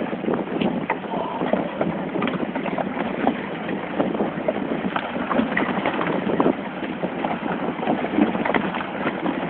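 River ice floes of a spring ice drift crunching, clinking and grinding against one another as they pile up on the bank: a dense, continuous crackle of many small knocks.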